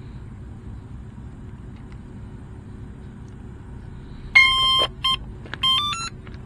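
Power-up beeps from the RC car's HobbyKing brushless ESC, sounded through its brushless motor once the battery is connected: a held beep about four seconds in, a short beep, then a quick run of rising tones as the ESC arms. A steady low rumble sits underneath.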